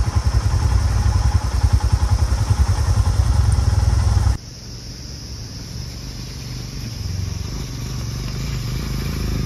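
Royal Enfield Himalayan's 411 cc single-cylinder engine idling close by with a fast, low thudding beat. About four seconds in it suddenly gives way to a quieter motorcycle engine that grows slowly louder as the bike approaches.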